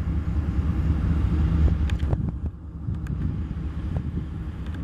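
Four Norfolk Southern diesel-electric freight locomotives (ES44AC, Dash 9-40C, SD70M, AC44C6M) pulling a train slowly away from a stand, a steady low rumble with a few faint clicks.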